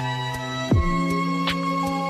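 Lo-fi background music: held chords over a slow drum beat, with a low kick about three-quarters of a second in and sharp snare-like hits at the start and near the end.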